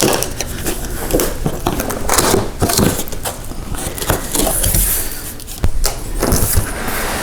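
An air fryer's cardboard box and its packaging being opened and handled: continuous rustling and crackling with frequent sharp knocks and scrapes.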